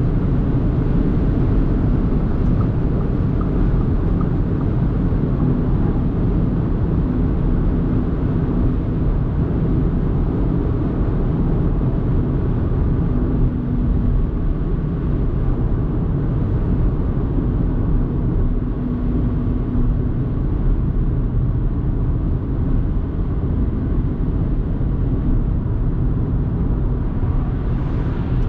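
2024 Audi A3 Sportback 1.5 TFSI, a turbocharged four-cylinder petrol car, driving at speed on a motorway. There is a steady rumble of tyre and wind noise over a low engine hum, with a faint hum-tone that comes and goes.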